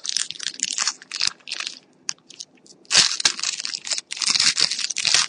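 Trading cards and their plastic or foil packaging being handled, making irregular crinkling and rustling. There is a short lull about halfway through, then denser rustling.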